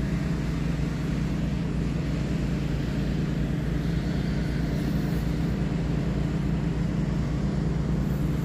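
A steady low mechanical hum with several held low tones over a constant noise floor, unchanging throughout.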